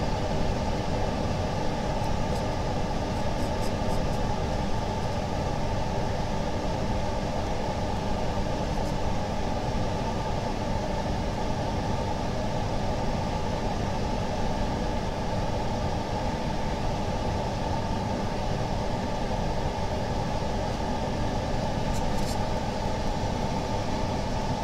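Steady low machine hum from workshop equipment, with a few faint light clicks near the end.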